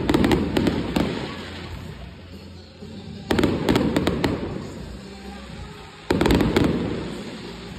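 Aerial fireworks shells bursting overhead: three volleys of sharp bangs and cracks, near the start, about three seconds in and about six seconds in, each dying away over a couple of seconds.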